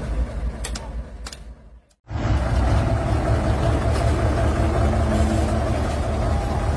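A vehicle engine running steadily with a low rumble, starting abruptly about two seconds in after a brief fade to silence. Before that, a fading mechanical noise with a few sharp clicks.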